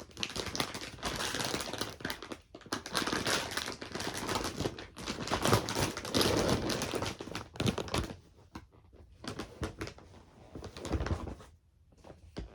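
Plastic mailer package being torn open and handled, a dense crinkling and crackling that thins out over the last few seconds.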